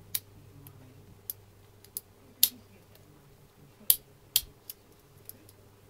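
Lock pick and tension wrench clicking in the keyway of a Draper Expert 6-pin padlock with spool pins, being picked: about ten sharp metal clicks at irregular intervals, the loudest about two and a half and four seconds in.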